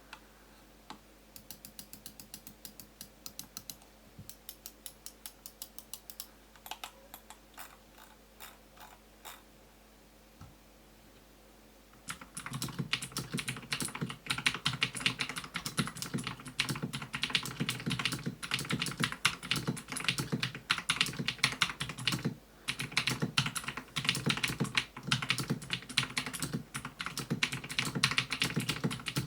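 Marvo KG901 mechanical keyboard with clicky Jixian blue switches lubed with sunflower oil, being tested. For about the first twelve seconds single keys are pressed one at a time, a few clicks a second; then fast continuous typing starts, much louder and denser.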